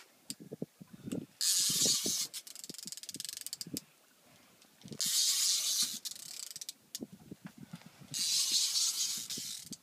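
Fishing reel cranked in three bursts of about a second each, its gears clicking fast, as line is wound in while fighting a heavy sturgeon.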